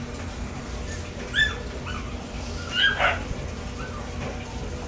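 Small dog giving several short, high-pitched whimpering yips, the loudest about a second and a half in and about three seconds in.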